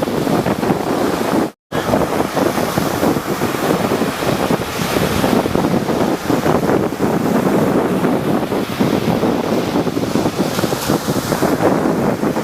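Rough sea surf breaking and washing, with wind buffeting the microphone. The sound cuts out completely for a split second about a second and a half in.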